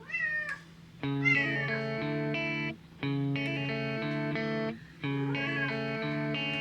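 Cat meowing three times over background music that plays in short phrases with brief pauses: once at the start, once about a second in, and once near the end. Each meow rises and then falls in pitch.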